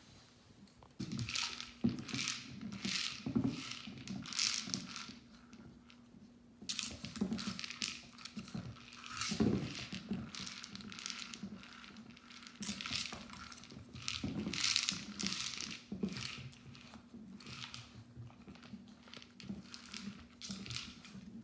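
Bob-A-Lot plastic dog feeder being knocked and rocked about on a hardwood floor, with dry kibble rattling and scraping inside it in many irregular short bursts and low knocks from the feeder's base.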